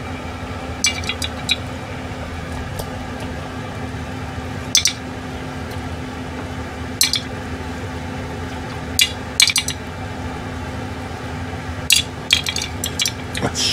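Skewers clinking against the wire rack of a stove's grill drawer and a porcelain plate as grilled skewers are lifted out and laid down. The clinks come in short clusters about five times, over a steady low hum.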